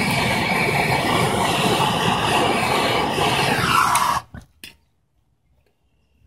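Handheld propane torch burning with a steady hiss while heating a brass raw water pump cover for soldering, then shut off suddenly about four seconds in, followed by two short clicks.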